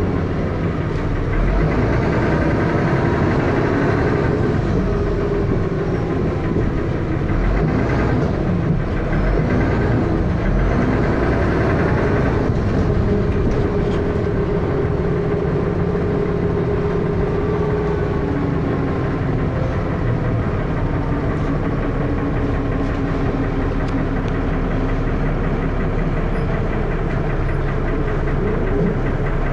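Dennis Arrow double-decker bus engine running with heavy thrash and a loud knocking noise. The engine's pitch rises and falls through the first half, then settles steadier.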